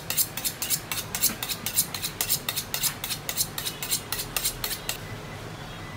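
Kitchen knife being honed: quick metal-on-metal scraping strokes of the blade, about five a second, stopping about five seconds in.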